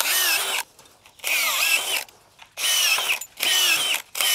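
DeWalt cordless drill spinning a tie-twisting bit, run in five short bursts of under a second each, twisting 9-gauge wire ties around an aluminum bottom rail to fasten the chain link to it.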